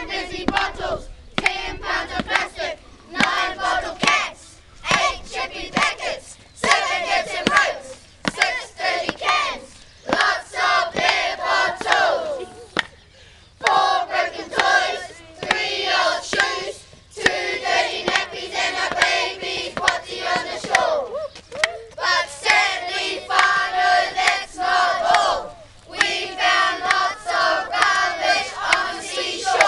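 A group of schoolchildren chanting in unison, in loud shouted phrases a few seconds long with short breaks between them.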